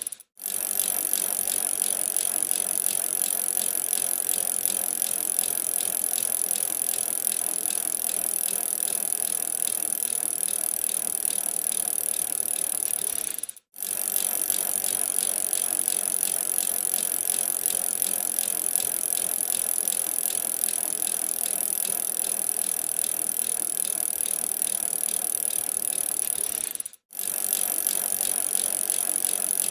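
A bicycle being ridden, its drivetrain giving a steady, fast ticking rattle. The sound cuts out suddenly for a split second twice, about halfway through and near the end.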